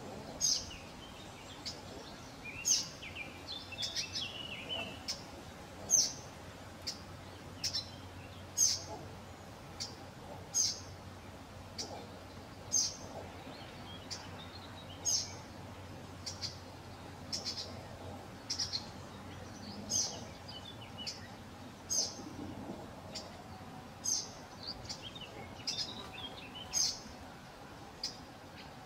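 Blackcaps calling: short, sharp calls repeated about once a second, with brief soft twittering a few seconds in and again near the end.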